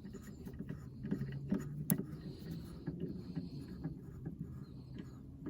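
Scattered small clicks and knocks of hands working a new hood gas strut, trying to force its end socket onto the ball-stud mount while the strut is slightly too long to line up.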